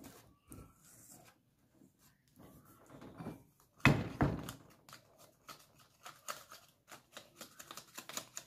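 Wire whisk stirring flour into cookie batter in a stainless steel bowl: two loud knocks about four seconds in as the utensils strike the bowl, then quick irregular clicks and scrapes of the whisk against the steel.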